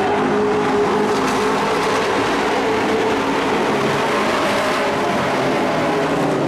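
Several dirt-track race trucks' engines running together at racing speed: a steady drone of overlapping engine notes.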